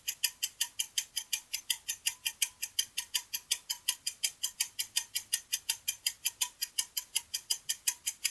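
Ticking-clock countdown sound effect: sharp, even ticks, about five a second, timing a quiz answer.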